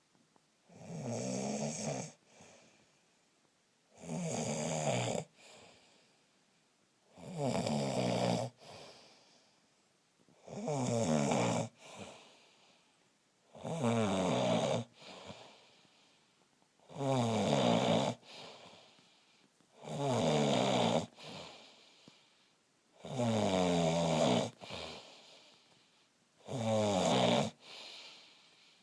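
A man snoring in his sleep: a loud, rough snore about every three seconds, each lasting over a second, with a faint breath out after each one.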